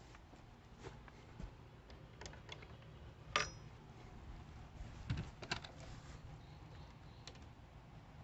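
Faint scattered light clicks and taps from handling a handheld phone camera, with the sharpest click about three and a half seconds in and a quick few more about five seconds in.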